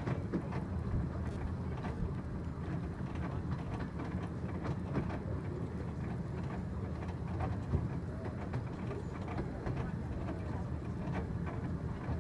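15-inch-gauge passenger carriage rolling along the track: a steady low rumble of wheels on rails with scattered clicks and knocks.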